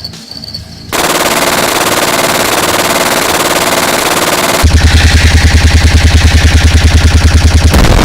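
Machine-gun fire sound effect: a dense, loud burst of gunfire starts about a second in, then turns into a rapid, evenly spaced automatic burst of about ten shots a second with a heavy low thump from about halfway to near the end.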